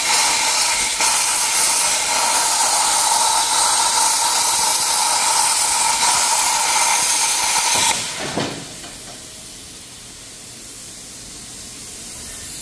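iYeah CUT55 pilot-arc plasma cutter cutting at 45 amps with a hand-held torch: a loud, steady hiss. About eight seconds in it drops off sharply, and a much quieter hiss carries on.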